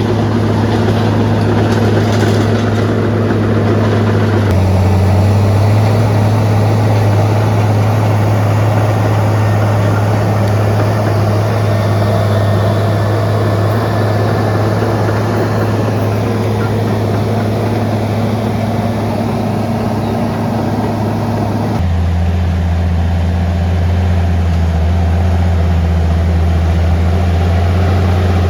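Bulldozer's diesel engine running steadily with a deep hum. The engine note changes abruptly twice, about four seconds in and again a little past twenty seconds.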